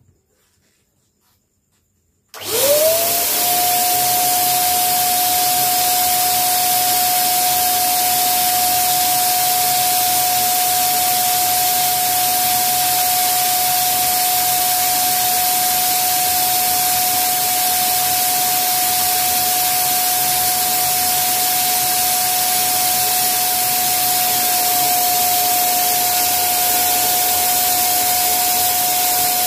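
Electric air pump switched on about two seconds in, its motor spinning up within a moment to a steady whine over a loud rush of air as it inflates a vinyl inflatable chair.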